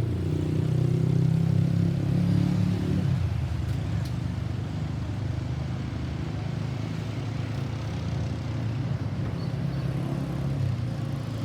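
Road vehicle engine running close by over steady traffic noise, loudest for the first three seconds and then easing to a lower rumble.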